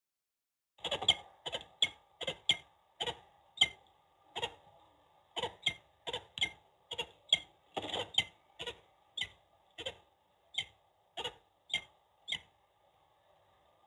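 Peregrine falcon calling off-camera: a steady run of short, sharp call notes, about two a second, that stops near the end.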